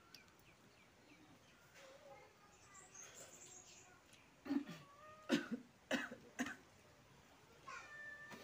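A person coughing several times in quick succession, short sharp coughs about halfway through.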